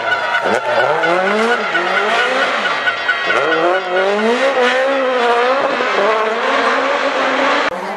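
Rally car engine revving hard, its pitch climbing and falling back again and again through gear changes and throttle lifts, over the hiss of tyres skidding as the car slides through a corner. The sound cuts out briefly near the end.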